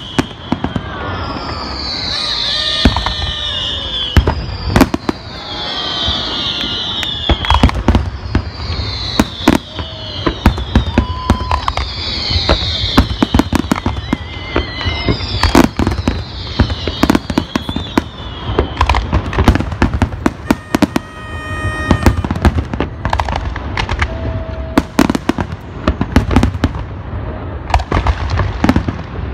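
Fireworks display: a dense, continuous run of bangs and crackling from shells bursting overhead. Through the first half, high whistles fall in pitch about every second and a half.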